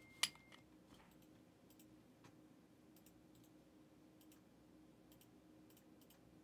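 Faint clicks of a computer mouse and keyboard: one sharper click just after the start, then scattered light clicks through the rest.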